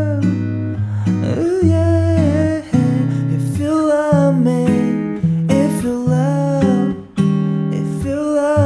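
A man singing a song in a soft voice, accompanying himself on a strummed acoustic guitar, with short breaks between sung phrases.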